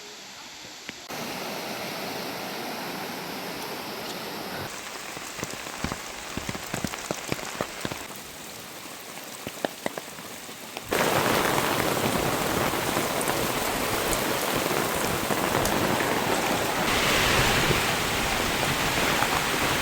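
Heavy rain pouring down, in several stretches that change abruptly in loudness. Sharp drip taps stand out in the middle, and the downpour is much louder and denser from about halfway on.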